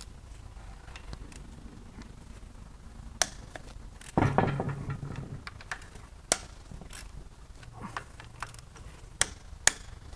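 Scattered metallic clicks and knocks of a long ratchet working the connecting-rod cap bolts inside a GM 5.3 L V8 block, with a louder, rougher burst of tool noise about four seconds in.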